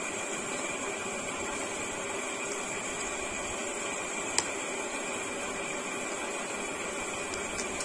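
Cardboard headphone box being opened by hand over a steady background hiss, with one sharp click a little over halfway through as the end flap is pulled free of its seal.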